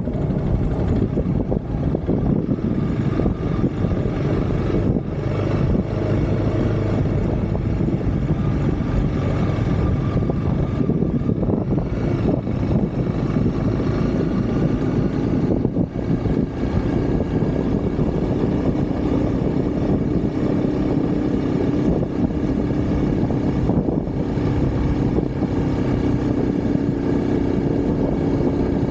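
Motorcycle engine running while riding, its pitch shifting now and then.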